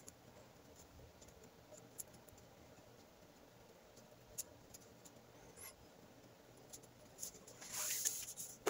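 Faint handling noise of nylon paracord being worked by hand into an overhand knot: a few small clicks, then a louder rustle of cord being pulled near the end.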